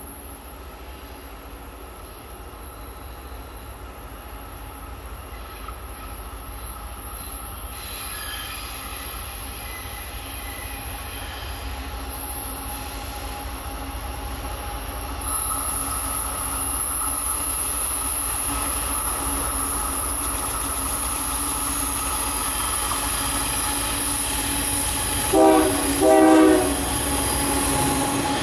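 A train approaching and growing steadily louder, with steel wheels squealing on the rails. Its horn sounds two short blasts near the end.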